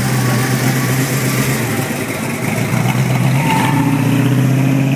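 Supercharged V8 of a Dodge Demon running low and steady, its pitch stepping up a little past halfway through as the car moves off.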